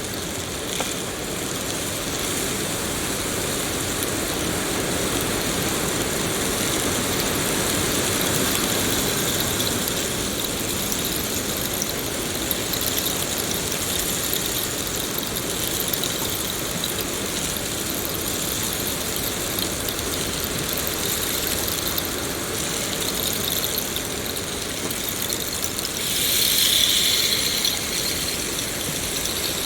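Steady rain falling in a forest, an even hiss with faint high steady tones running through it. A louder high-pitched sound rises over it for about two seconds near the end.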